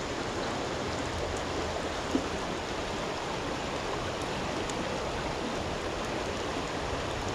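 Steady rush of a river flowing over rocks and through riffles, with one small knock about two seconds in.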